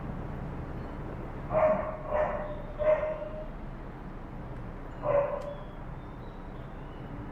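A dog barking: three barks in quick succession, then a single bark about two seconds later, over a steady low background hum.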